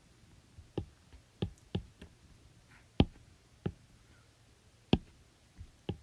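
About eight sharp clicks and taps at irregular intervals, the loudest about three seconds in and again near five seconds, over a faint steady low hum.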